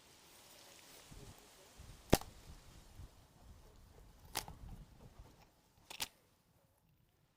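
Kitchen prep noise: three sharp knocks about two seconds apart, the first the loudest, with soft handling and rustling between them.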